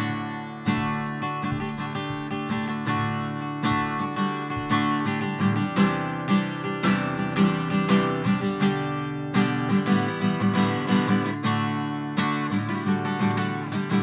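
Acoustic guitar strummed in a steady, even rhythm, with no voice.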